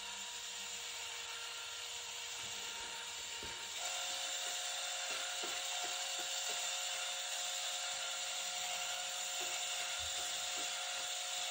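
Electric drill running steadily with a mixing paddle stirring a tin of paint: an even motor whine whose pitch shifts about four seconds in, with faint ticks later on.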